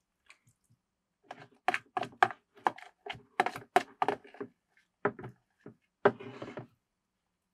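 A series of about a dozen sharp, irregular knocks and thunks over some five seconds, ending in a short scraping rustle.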